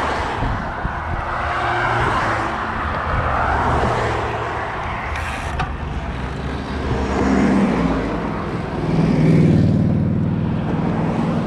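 Rushing wind and road noise on a fast road-bike descent at up to about 50 mph. A car following close behind adds an engine hum that grows louder a few seconds before the end.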